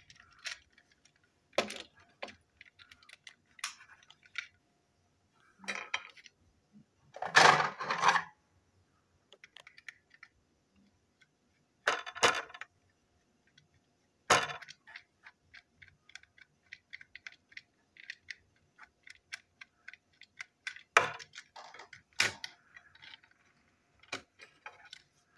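Small toy locomotive parts clicking and clinking as they are handled and fitted together, with the loudest clatter about a third of the way in. In the middle, a run of fine, fairly even ticks comes as a small screwdriver turns a screw into the toy.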